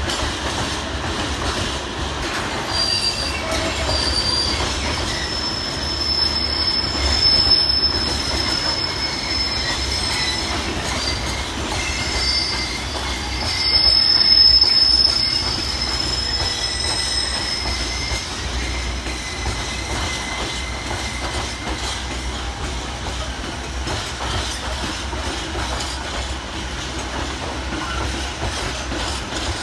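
Empty intermodal container flat wagons of a slow freight train rolling past, their wheels squealing in high thin tones over a steady low rumble. The squeal swells loudest about a quarter of the way in and again near the middle.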